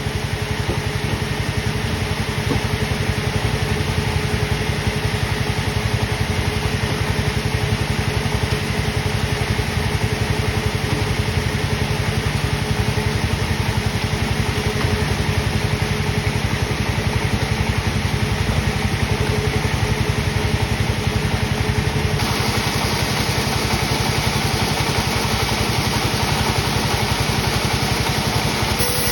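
Sawmill machinery running steadily: a continuous engine-like drone with a faint, steady whine.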